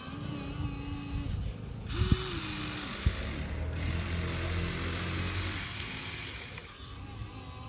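Electric motors and gearboxes of a Huina 1593 RC excavator whining as the arm swings and the bucket is raised, the pitch shifting as each motor starts and stops. Two sharp clicks come about two and three seconds in.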